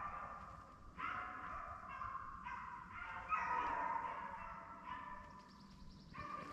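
A pack of beagles baying together in overlapping, drawn-out cries while running a rabbit, with fresh outbursts about a second in and again around three seconds.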